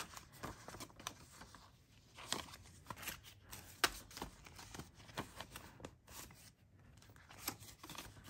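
Paper dollar bills rustling and flicking as they are handled and counted by hand, with the pages and clear plastic pouches of a ring-bound cash binder being turned. Faint, with irregular sharp flicks scattered throughout.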